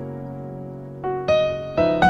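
Gentle instrumental music on piano or electric piano: a held chord fades away, then single notes of the melody come in about a second in, leading into a fuller chord near the end.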